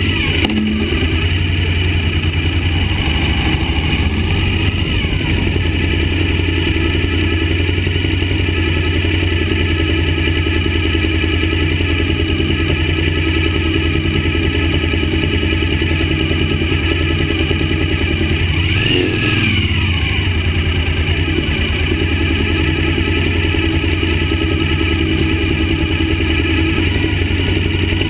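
Suzuki V-Strom 1000's V-twin engine running at a steady cruise, heard from the bike over a constant hiss. A brief rise and fall in pitch comes about two-thirds of the way through.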